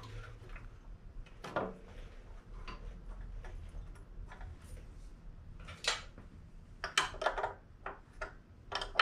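Scattered metallic clicks and taps of a wrench and bolts being handled on a snowblower's small engine, irregular, with a few quick ones in a row about seven seconds in.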